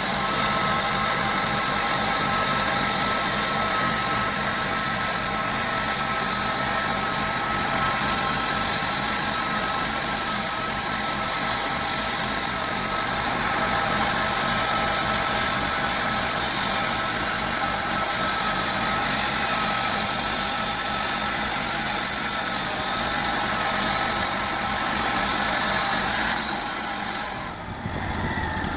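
Bandsaw sawmill running steadily as the blade saws through a yew log. Near the end the high-pitched cutting noise cuts off suddenly and a lower, quieter running sound carries on.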